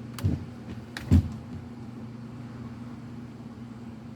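The wiper stalk of a 2016 Ford F-150's multifunction switch is turned back to off, giving a few short clicks, the loudest about a second in, over a steady low hum in the truck's cab. The switch is faulty and still signals intermittent wipe in the off position.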